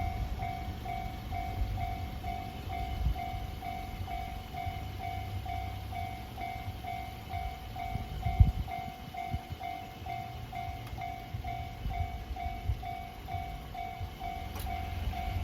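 Railway level-crossing warning bell ringing steadily, about two strokes a second, while a train passes with a low rumble and clatter of wheels on the rails. A single loud knock stands out about halfway through.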